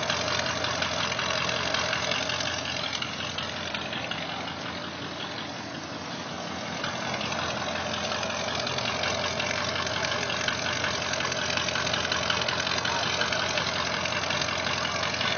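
Old carbureted pickup truck engine idling loudly and steadily, heard from behind the truck at its exhaust end.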